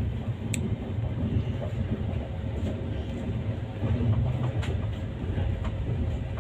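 Train running on the rails: a steady low rumble with a few faint clicks.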